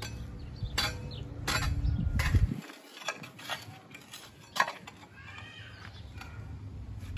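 Footsteps clicking on hard ground, a handful of sharp steps, over a low wind rumble on the microphone that cuts off about two and a half seconds in. A bird calls a few times about five seconds in.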